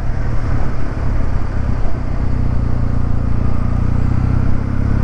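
Kawasaki W650's air-cooled parallel-twin engine running at a steady cruise while the bike is ridden, with wind and road noise on the rider's microphone.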